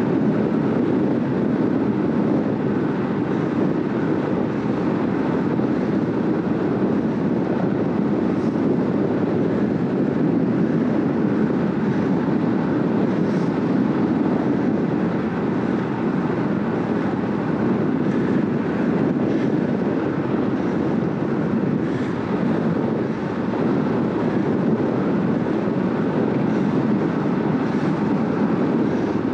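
Steady rush of wind over the microphone and road-bike tyres running on asphalt at about 45–48 km/h, an even low noise without a break.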